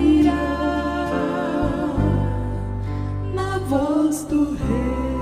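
Gospel hymn music: two women's voices drawing out the final sung phrase in long held notes over sustained instrumental accompaniment with steady bass notes, as the song closes.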